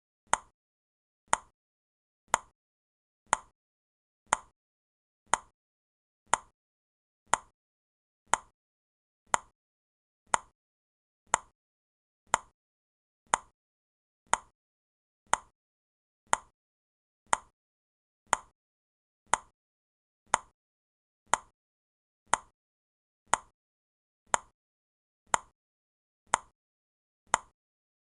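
Clock ticking for a countdown timer: one short, sharp tick each second, evenly spaced and all alike.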